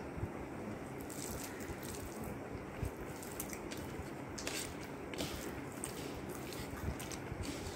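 Rice being mixed and eaten by hand: soft, wet squishing and chewing with scattered small clicks, over steady low background noise.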